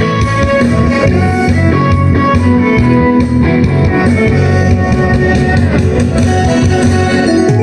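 Instrumental break of a trot song: guitar and drums play with no singing.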